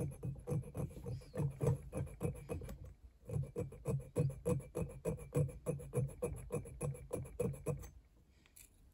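Needle file rasping on a small brass ring piece in quick back-and-forth strokes, about three a second, with a short break about three seconds in; the filing stops about eight seconds in.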